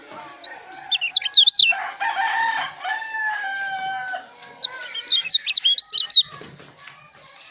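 Kecial Lombok songbird singing rapid bursts of high, looping chirped whistles, twice, with a rooster crowing for about two seconds in between.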